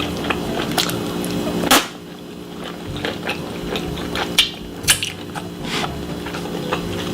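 Close-miked mukbang eating sounds: irregular crisp bites and mouth clicks from chewing, over a steady low hum.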